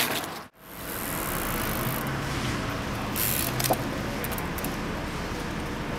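Steady city street traffic noise that drops out to silence for a moment about half a second in, then carries on evenly. A few short clicks and scrapes come through about three seconds in.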